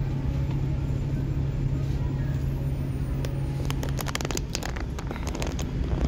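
School bus engine idling with a steady low hum, heard from inside the bus. In the second half the hum eases off and a run of sharp, irregular clicks and rattles comes in.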